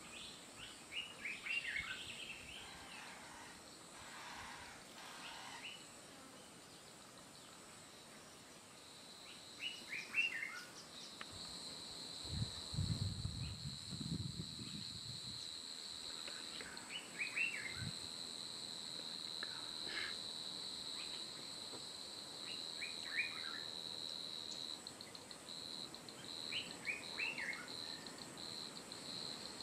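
Bush ambience: a steady high-pitched insect trill sets in about a third of the way through and carries on. A bird repeats a short phrase of quick, falling chirps every several seconds. A brief low rumble comes near the middle.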